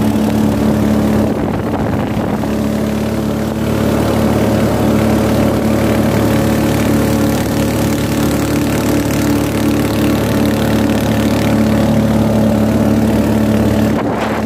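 Small outboard motor driving a boat at a steady speed, a constant drone that holds one pitch, with a hiss of wind and water spray over it.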